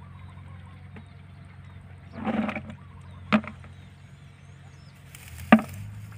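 Hands splashing and groping in shallow muddy paddy water, with a louder spell of splashing a little over two seconds in, then two short sharp sounds, the second the loudest, over a steady low hum.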